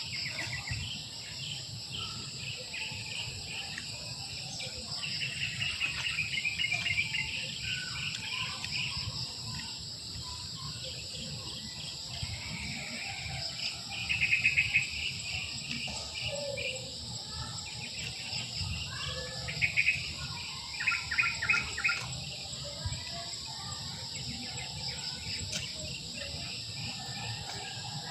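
Insects trilling in a steady high chorus, with birds chirping over it in short series of rapid notes. The loudest bird bursts come about halfway through and again about two-thirds of the way in.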